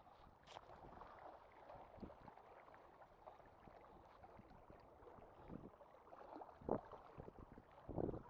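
Faint outdoor background hiss with a few soft bumps, the loudest two about two-thirds of the way through and near the end.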